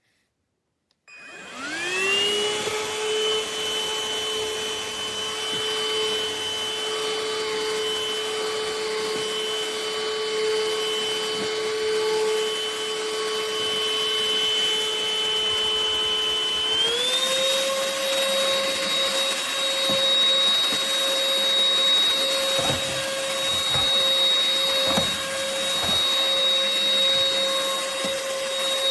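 Cordless stick vacuum (UML0 N8) switching on, its motor whining up to speed, then running steadily with a high whine. About seventeen seconds in, the pitch steps up to a higher motor speed. A few light knocks come later on.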